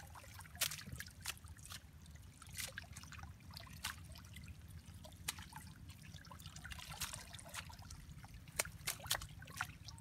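Water trickling and splashing as a hand-held drag net full of catch is gathered and worked in shallow river water. Short, sharp drips and splashes come irregularly throughout, over a low steady rumble.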